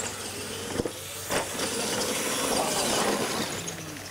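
Radio-controlled monster trucks accelerating away across dirt and gravel: a steady, noisy hiss of motors and tyres, with a sharp knock about a second and a half in.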